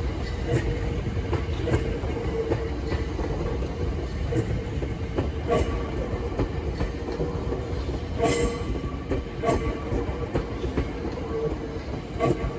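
Electric train on the Tobu Tojo Line running along the track: a steady low rumble and a constant hum, with scattered wheel clicks and rattles, the strongest about eight seconds in.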